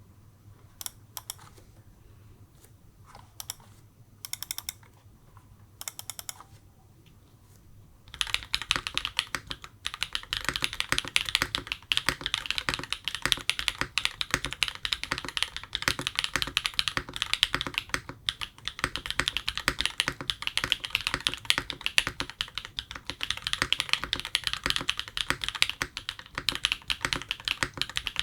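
Custom mechanical keyboard with Cherry MX franken switches (POM stems) on a carbon fibre plate being typed on. A few separate keystrokes come first, then from about a third of the way in there is fast, continuous typing.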